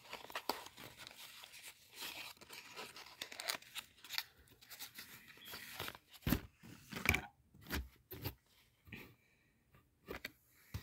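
Kraft packing paper and cosmetic boxes being handled: crinkling, rustling paper for the first several seconds, then a few sharp knocks as boxes are moved, after which it goes mostly quiet.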